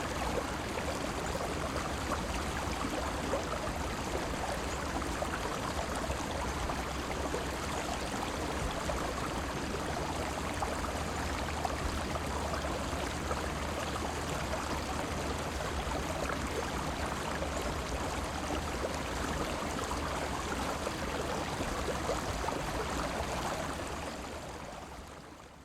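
River water flowing steadily, gurgling and rushing. It fades out over the last second or two.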